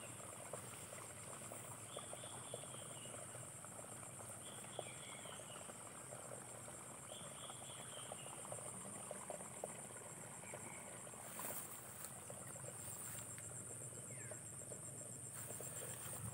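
Steady, high-pitched insect chorus, crickets or cicadas in the field vegetation, with a few short chirping calls every couple of seconds and a couple of brief rustles in the second half.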